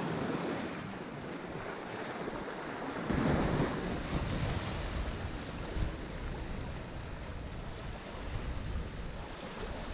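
Beach ambience: small waves washing at the shoreline and wind on the microphone. The wind rumble grows stronger from about three seconds in.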